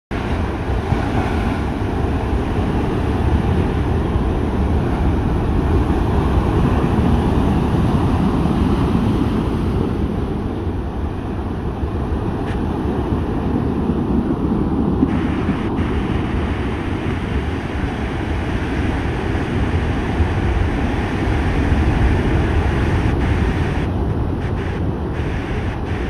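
Heavy surf of a rough sea breaking and washing in, churned up ahead of a typhoon, in a continuous noise that swells and eases. Wind noise buffets the microphone throughout.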